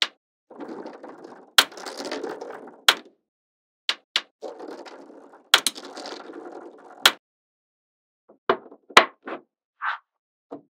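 Small magnetic balls clicking sharply together, with two longer stretches of rattling in between, then a handful of separate clicks near the end.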